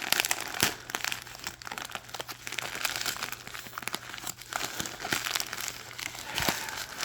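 Plastic packaging bag crinkling and crackling as it is handled and pulled open by hand, a dense run of irregular rustles and small snaps.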